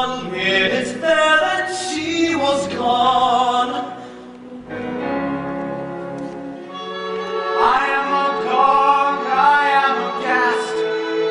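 Musical-theatre singing with orchestral accompaniment, the voices holding long notes. The singing dips briefly a little before halfway, then comes back in.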